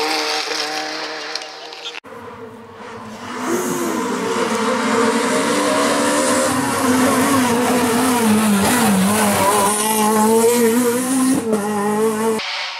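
Rally car engines at hard throttle on a tarmac stage, the revs rising and falling through gear changes and a tight bend, with some tyre squeal. The sound cuts sharply to another car about two seconds in and again near the end.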